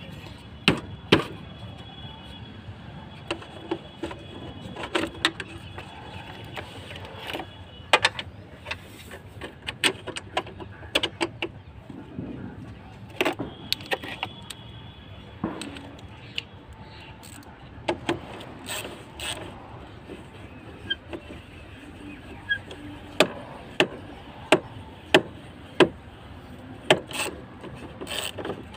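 Irregular sharp clicks, taps and knocks of hands and a screwdriver working on a Mahindra Bolero's plastic air filter housing as it is pressed into place and its clamp fastened, with a run of louder clicks about two-thirds of the way through, over steady background noise.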